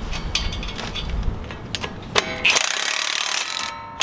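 Light metal clinks and ticks as nuts are started by hand on a truck's front hub, then about two and a half seconds in a cordless impact wrench hammers for about a second, running the nuts down tight.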